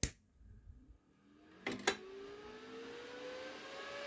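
A sharp click, then two more clicks a little under two seconds in, after which a high-speed 80 CFM electric cooling fan starts and spins up, its whine rising steadily in pitch as it gathers speed.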